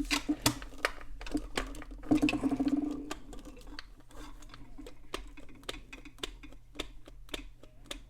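Irregular clicks and taps of a cheap plastic flip-clock housing being handled and worked loose, with a short whine lasting about a second around two seconds in.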